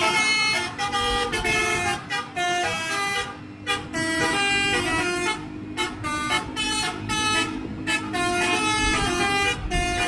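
Bus telolet horn, a multi-tone musical horn, playing a tune of short notes in quick succession, with brief breaks between phrases.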